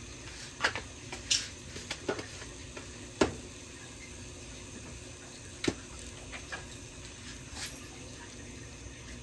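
A handful of sharp, irregular clicks and clinks in a kitchen, about six in all and the loudest a little over three seconds in with a short ring, over a low steady hiss.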